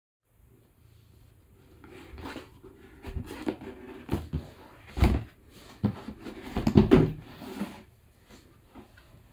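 Cardboard box knocking, scraping and rustling as it is handled and its lid lifted, with a cat moving inside it. The knocks come irregularly, and the two loudest thumps fall about five and seven seconds in.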